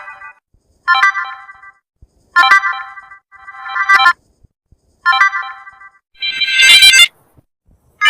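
Samsung phone notification tones played one after another: five short, bright electronic chimes, each under a second, with brief silences between them. The fourth is the loudest.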